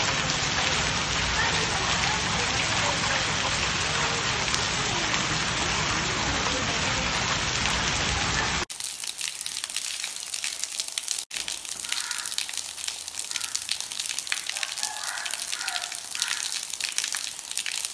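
Heavy rain mixed with small hail falling on paving: a dense, steady rush of rain. After a cut about halfway through comes a closer patter of separate drops and pellets striking wet stone tiles.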